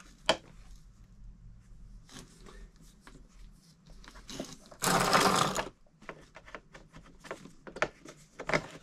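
Plastic vacuum hose and fittings of a Bissell PowerForce upright being handled and fitted back onto the base: scattered clicks and light rustling, with one louder scrape lasting under a second about five seconds in.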